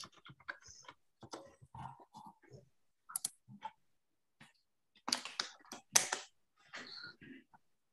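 Faint, irregular clicking of computer keyboard typing, picked up over a video-call microphone, with a louder noisy burst about five seconds in.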